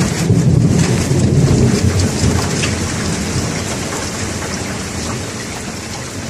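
Steady rain falling with a low rumble of thunder that dies away over the first two seconds; the rain then carries on, slowly getting quieter.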